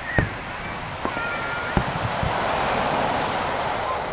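Starmine fireworks: sharp booms of shells launching and bursting, the loudest just after the start and two more a little before and after two seconds in, over a rush of surf that swells in the second half.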